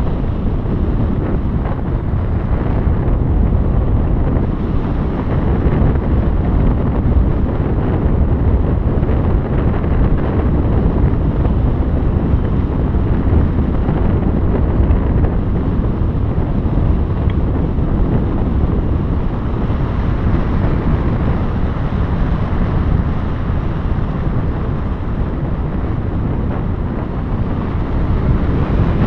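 Wind rushing and buffeting over the microphone, steady and loud throughout.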